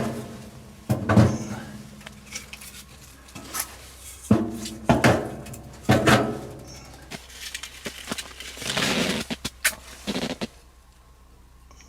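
Metal clanks and knocks from a steel tent stove being handled as it is lit: a string of sharp knocks, some ringing briefly, and a short rushing noise about nine seconds in. It goes quieter near the end.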